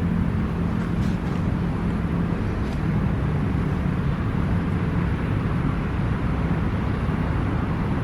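Steady low road-traffic rumble, with a low engine hum that weakens about two and a half seconds in.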